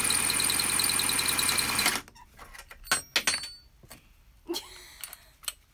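Power drill running steadily with its bit boring into a screw through a steel floor rail, to break the screw in half, then stopping about two seconds in. A few sharp metallic clicks follow.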